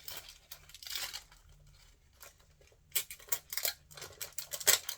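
Toy packaging being torn open and crinkled by hand, in irregular rustling strokes with a short lull in the middle and a busier run of crackling near the end.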